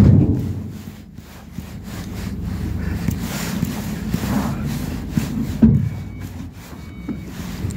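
Ford Transit minibus on the move, heard from inside the cabin: steady low engine and road rumble with rattles and knocks, the sharpest about five and a half seconds in.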